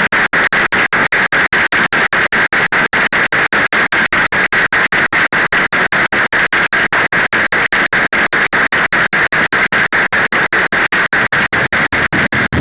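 Heavy rain as a loud, steady hiss, broken by very short regular dropouts about five times a second.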